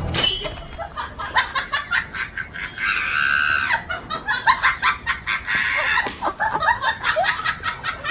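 Chickens clucking and squawking, with one long, loud squawk about three seconds in, over a run of short sharp noises.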